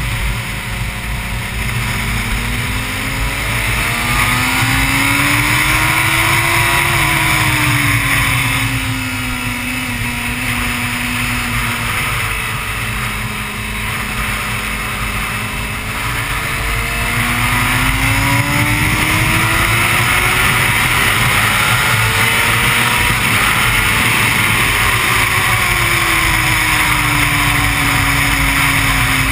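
Honda CBR600 inline-four engine ridden hard on a track, with heavy wind rush on the microphone. The revs climb, drop, hold briefly, then climb again and drop near the end, as the bike accelerates out of corners and brakes into the next.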